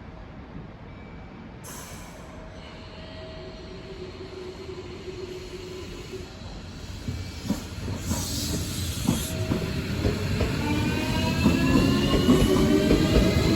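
A Chikuhi Line train approaching and growing steadily louder, rumbling, with a whine that rises in pitch over the last few seconds.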